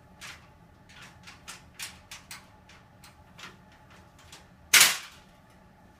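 Ironing board frame clicking and knocking as its folding legs are forced, then one loud sharp snap about five seconds in as the mechanism gives way.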